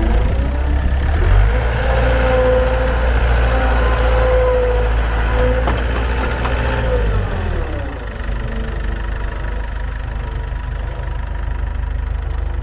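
Ford L785 skid steer loader's diesel engine revved up and held at higher speed for several seconds, then dropping back to a steady idle about seven seconds in.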